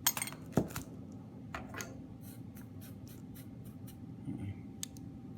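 Small tools and solder wire handled on a workbench while preparing to solder a battery connection: a cluster of sharp clicks and scrapes in the first second, then a few scattered light clicks.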